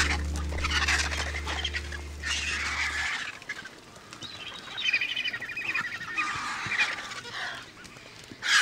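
Griffon and black vultures squabbling over a carcass, giving harsh, raspy calls in several bursts. A held low note of background music ends about three seconds in.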